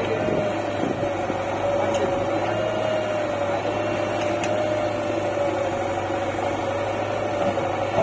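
Diesel engines of a JCB 3DX backhoe loader and a tractor running steadily while the backhoe loads soil, with a steady whine that wavers slightly in pitch.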